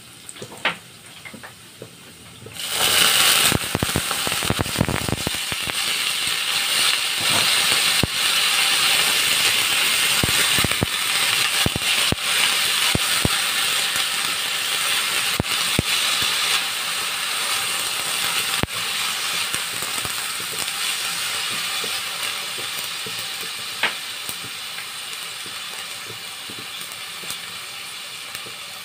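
Stainless steel wok: a light sizzle of garlic and shallots in oil, then, a little under three seconds in, a sudden loud burst of sizzling as broccoli and carrots go into the hot oil, slowly fading as they are stir-fried. A spatula clicks and scrapes against the pan throughout.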